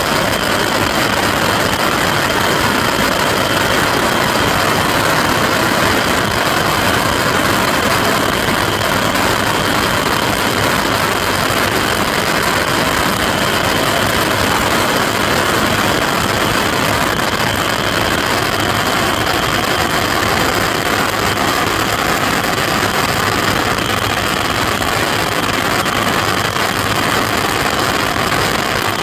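Massed Saturn Missile fireworks: thousands of small rockets firing at once, blending into one steady, loud roar of hiss and crackle without separate bangs.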